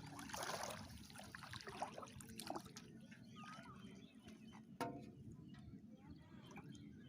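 Quiet water trickling and sloshing, with a couple of faint chirps and a single sharp knock about five seconds in.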